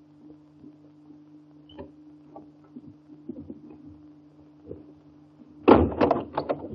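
Steady low hum and faint crackle of an early-1930s film soundtrack, then near the end a sudden loud clatter of several sharp knocks lasting about a second.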